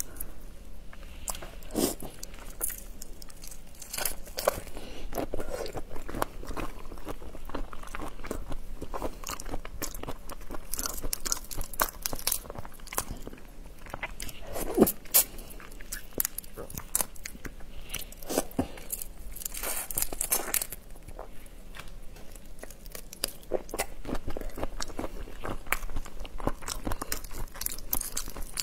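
Raw marinated shrimp being peeled by hand: shells crackling and snapping as they are pulled apart, with wet sticky sounds from the marinade, picked up close on a clip-on microphone. A few louder snaps come about halfway through.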